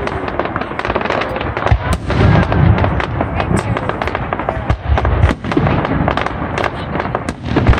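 Fireworks going off in quick succession: a dense, continuous run of bangs and crackling as shells and fountains of red and white stars fire.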